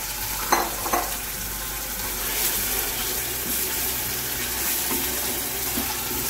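Beef chunks sizzling in hot oil in a pressure cooker as they are stirred with a wooden spatula to brown them. Two short knocks in the first second.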